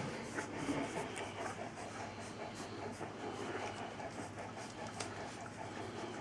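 Ten-day-old Polish Tatra Sheepdog puppies nursing: a fast, even rhythm of suckling with small wet smacking clicks scattered through it.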